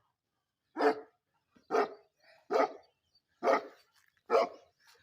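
A Pakistani bully kutta (bully mastiff) barking five times, at an even pace of about one bark a second.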